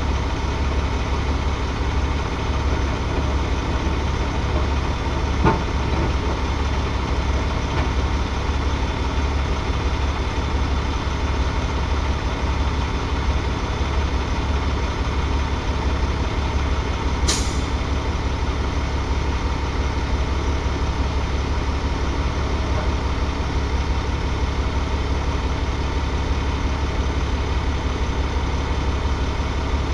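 Heavy oilfield truck's diesel engine idling steadily, heard from inside the cab. There is a light knock about five seconds in and a short sharp hiss about seventeen seconds in.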